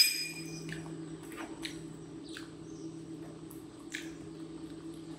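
A spoon clinks against a small ceramic bowl with a short bright ring, followed by faint clicks of dishes and utensils on the table over a steady low hum.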